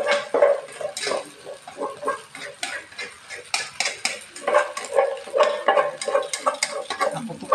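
A utensil scraping and clinking again and again against a white pot as it is tipped and emptied into an aluminium wok, with short ringing knocks of kitchenware.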